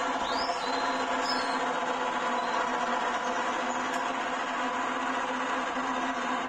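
Small electric motor of a homemade egg incubator's egg-turning mechanism running steadily, a continuous mechanical hum as it tilts the egg trays. Two short high squeaks sound in the first second or so.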